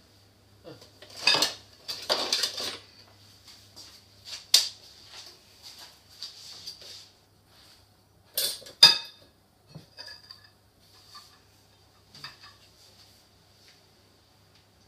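Red spatula and fork scraping and knocking against a glass mixing bowl as brownie batter is scraped out into a glass baking dish: irregular scrapes and clinks, the loudest a pair of knocks about eight and a half seconds in.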